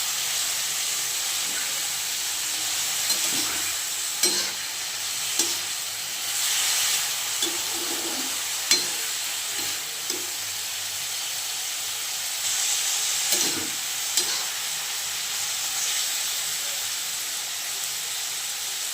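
Gobhi bhujia (cauliflower) frying in a pan: a steady sizzle, broken by irregular clicks and knocks of a utensil stirring against the pan, with the sizzle briefly swelling twice as the food is turned.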